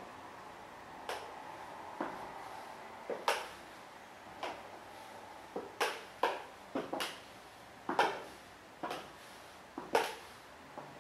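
Stiletto high heels clicking on a hard floor as the wearer walks slowly back and forth, single sharp heel strikes at an uneven pace with a short echo in a small room.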